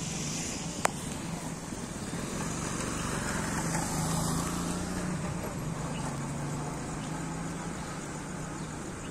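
Muddy floodwater of a swollen stream rushing past in a steady noise, with a low hum underneath and one sharp click about a second in.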